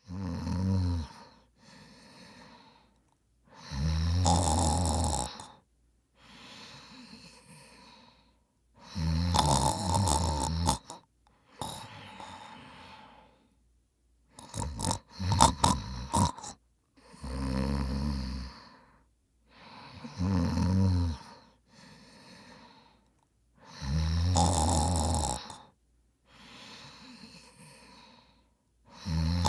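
A man snoring in his sleep: seven loud, low snores a few seconds apart, not evenly spaced, with a fainter breath between most of them.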